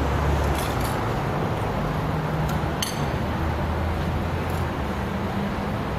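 Steady low outdoor rumble with a few light metallic clinks scattered through it, from the fencers' steel rapiers and daggers.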